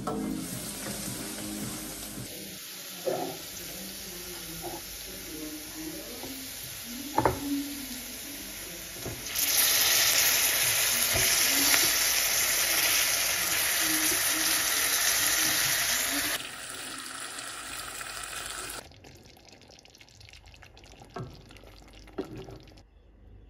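Chicken and vegetables sizzling as they fry in a hot stainless steel pot, loudest for several seconds in the middle, with a few sharp knocks of a wooden spoon against the pot.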